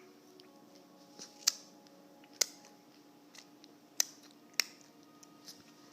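A handful of sharp single clicks at irregular intervals, the loudest a little under two, two and a half, four and four and a half seconds in, over a faint steady hum: H's new clicking noise.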